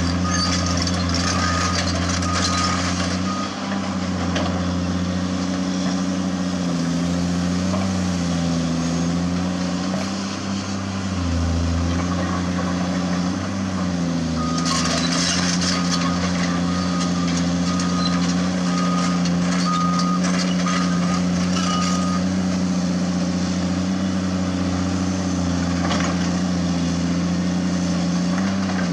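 Diesel engine of a Caterpillar hydraulic excavator running under load, its pitch dipping briefly as the hydraulics take up the work, with loose limestone scraping and clattering. A warning alarm beeps about twice a second for the first few seconds and again for several seconds from about the middle.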